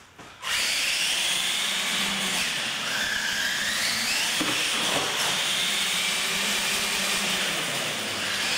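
Electric R/C monster trucks racing flat out on a concrete floor: a steady hiss of motors and tires, with high motor whines rising and falling as the throttle changes. It starts suddenly about half a second in.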